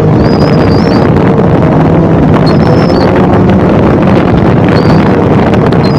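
Snowmobile engine running steadily at speed, with wind buffeting the microphone. Short, faint high-pitched squeaks recur every second or two.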